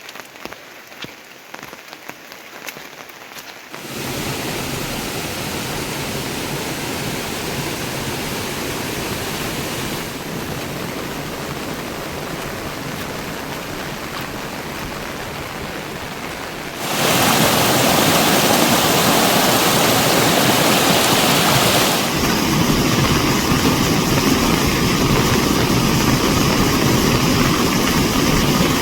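Rain: for the first few seconds single drops tick on a surface, then a steady heavy downpour takes over, jumping louder in sudden steps about four seconds in and again past the halfway mark.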